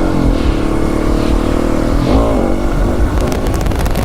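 Husqvarna 701 Supermoto's single-cylinder engine running under way, its pitch sliding slowly as the throttle changes, with a quick drop and recovery in revs about two seconds in, over a steady low rumble.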